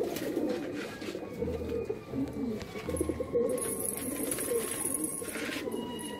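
Many domestic pigeons cooing together, overlapping low coos with no break, with two brief low rumbles in the first half.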